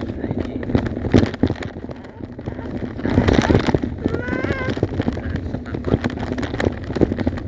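Bicycle rattling and knocking as it rides over a rough dirt track, with wind on the microphone. A young child's brief high-pitched vocal sound comes about four seconds in.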